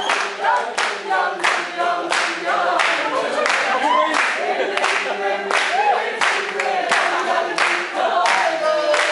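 A group of people clapping in a steady rhythm, about two and a half claps a second, while voices sing along unaccompanied.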